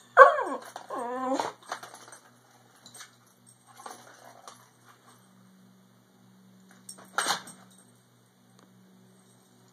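Pit bull puppy gives a sharp yelp that falls in pitch, then a short wavering whine, in the first second and a half. After that come only faint knocks from the plastic ball-track cat toy being nosed and pawed, with one louder clack about seven seconds in.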